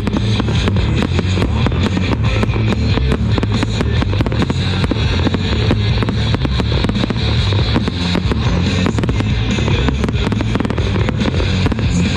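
An aerial fireworks barrage, with shells bursting and crackling in quick succession, many reports a second, over loud music.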